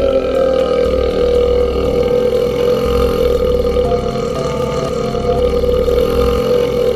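A man's long, continuous belch, held at a steady pitch without a break.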